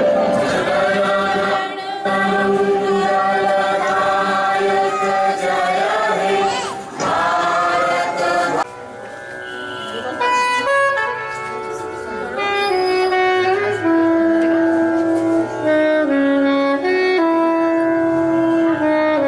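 A group of adult voices singing a song together in long held notes. About eight and a half seconds in this cuts off abruptly and gives way to instrumental music, a slow melody of long held notes.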